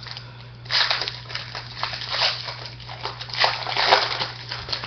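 Trading cards and a pack wrapper being handled: a run of irregular rustling, crinkling and sliding scrapes over a steady low hum.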